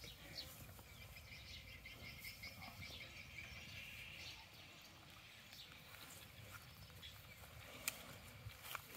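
Faint outdoor ambience close to silence, with a steady faint high hiss and a few soft clicks; no buffalo call stands out.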